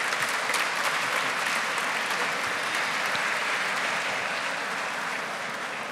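Audience applauding, an even clatter of many hands clapping that eases off slightly toward the end.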